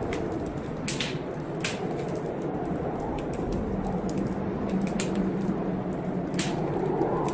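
Fireplace wood fire crackling, with several sharp pops scattered through it, over a steady low rushing noise of a rainstorm.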